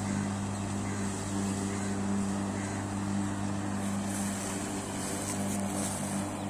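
A 3 HP three-phase electric lawn mower running steadily while being pushed across grass: a constant motor hum under a noisy rush from the cutting, the rush growing brighter in the last couple of seconds.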